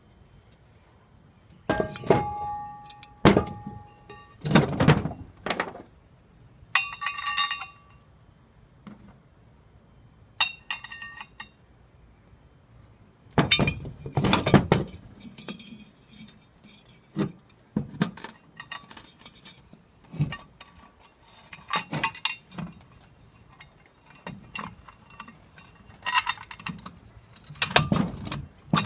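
Heavy metal parts being handled: a run of clanks, knocks and clinks as pieces are picked up and set down, a few ringing briefly with a clear tone, with a couple of short rattles.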